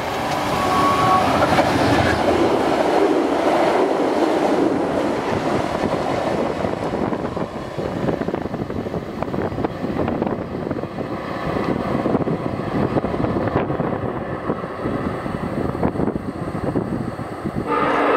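A GE P42DC diesel-electric passenger locomotive with a 16-cylinder engine runs past at speed, its engine loud for the first few seconds. Then the wheels of the passenger cars rumble and clatter steadily on the rails. Near the end the locomotive's horn starts to sound, a chord of steady tones.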